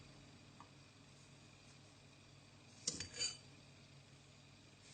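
Faint room tone, then about three seconds in a sharp click followed by a short scrape: a spoon against a small glass jar as sugar is spooned over chopped onion.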